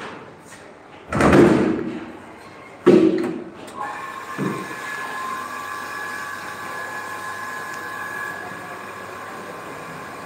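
Two loud rushes of noise in the first three seconds and a short knock, then about four seconds in a commercial RO water purifier's pump motor starts and runs with a steady hum and whine.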